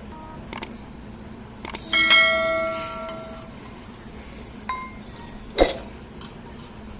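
Small metal vessels and utensils clinking and knocking together a few times. One strike about two seconds in rings with a bell-like tone for about a second and a half, and a shorter clink rings near the end.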